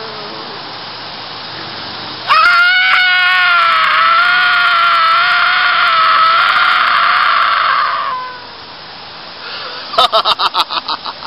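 A person's long, high-pitched scream, wavering in pitch and lasting about six seconds. Near the end comes a quick run of about eight short, sharp bursts.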